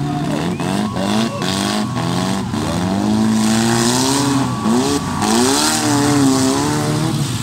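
Engines of several demolition-race cars revving up and down, the pitch rising and falling again and again, with a few sharp knocks in the first couple of seconds.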